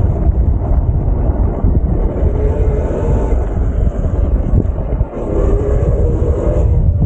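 Wind buffeting the microphone and steady rumble while riding an electric bike over dirt, with a faint steady whine underneath; the noise dips briefly about five seconds in.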